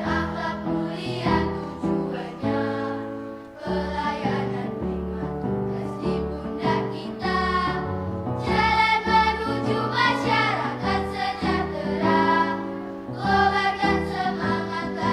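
Music with several voices singing together, choir-like, over accompaniment.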